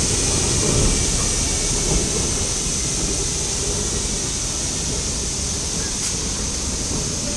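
Steam rack locomotive hissing steadily as it vents steam from its chimney, over a low rumble.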